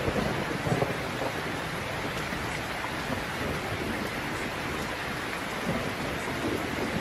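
Steady rain, an even hiss of falling water, with a few louder low rumbles like thunder in about the first second.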